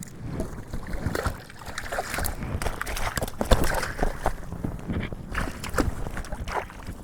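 Water splashing and sloshing close by, with irregular clicks and knocks throughout, as a small rainbow trout is brought in beside a float tube.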